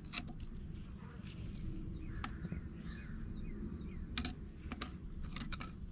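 Low outdoor background rumble with a bird giving a run of short falling chirps in the middle, and a few sharp light clicks.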